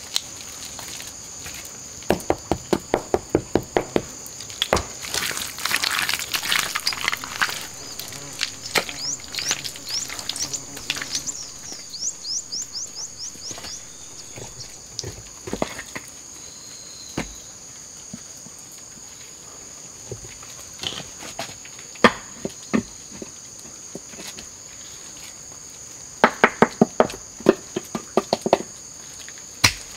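A steady high hum of forest insects, with runs of quick, regular slaps, about four a second, from hands patting down wet clay: one run about two seconds in and another near the end, plus scattered single pats between.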